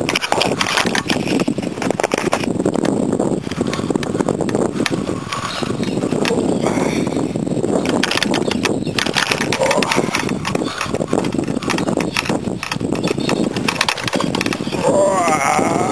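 Fishing reel being wound in while playing a hooked carp: a dense, steady run of clicks and rustling.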